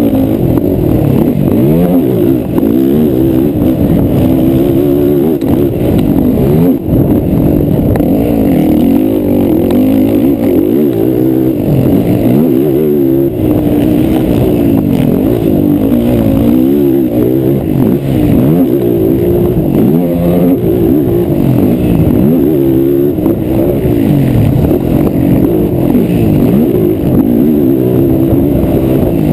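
A racing ATV engine revving hard, its pitch rising and falling over and over as the throttle opens and closes.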